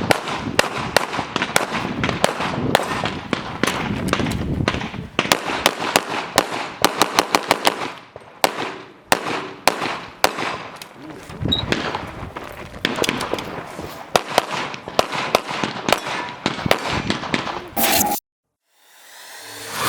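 Handgun shots fired in fast strings, several a second, as in IPSC practical shooting stages. They stop suddenly near the end.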